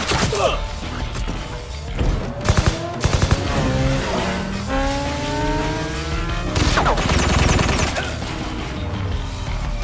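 Action-film sound mix: several gunshots, vehicles rushing past, and a loud crash of metal over a music score.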